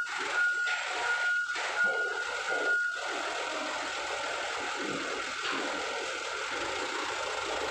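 A vehicle warning beeper sounds one high tone about every half second and stops about three seconds in. Under it runs the steady noise of a truck's engine as the truck moves slowly.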